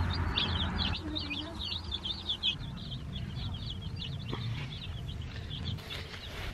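A brood of day-old Freedom Ranger meat chicks peeping: many quick, high chirps overlapping without pause, fading out about three and a half seconds in.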